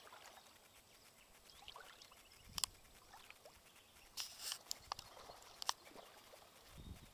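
Faint water lapping, broken by a handful of short, sharp splashes, the longest just after four seconds in.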